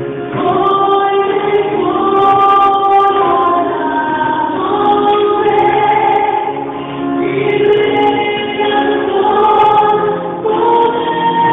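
Christian worship song: a choir sings long held notes in several voices over a musical backing. The sound is dull, with no high treble.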